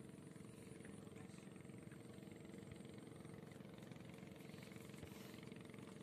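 Faint, steady low hum of a distant engine.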